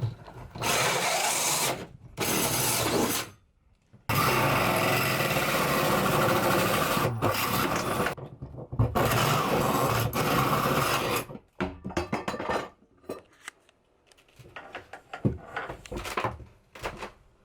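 Power tool cutting: two short runs, then one long run of about seven seconds, followed by scattered clicks and knocks as the work is handled.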